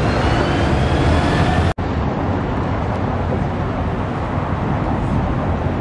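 Steady road-traffic noise, a dense rumble of passing vehicles in a city street. The sound cuts out for an instant about two seconds in and then carries on.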